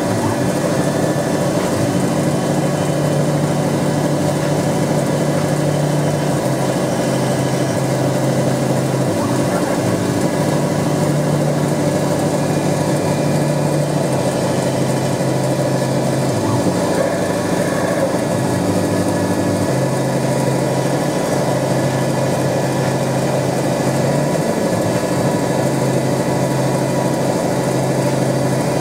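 Denford Novamill CNC milling machine cutting brass with a small end mill: steady running noise with a low hum that steps between two pitches every few seconds as the cutter changes moves.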